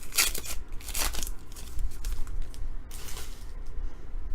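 Trading cards and a foil pack wrapper being handled: short rustling and crinkling swishes, the strongest two near the start and about a second in, then fainter ones.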